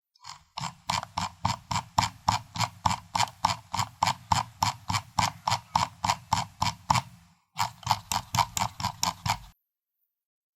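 Computer mouse scroll wheel turned in a steady run of notched clicks, about four or five a second. The clicking breaks off briefly about seven seconds in, then runs on for another two seconds before stopping.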